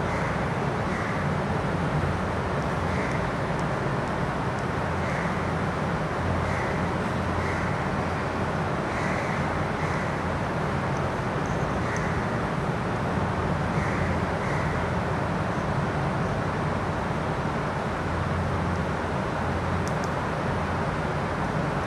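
Steady background noise with a low hum, and faint short ticks every second or two.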